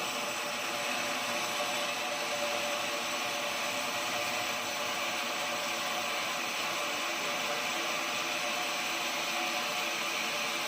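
Portable sawmill running steadily while sawing an oak log: an even mechanical whir with a few steady tones and no breaks.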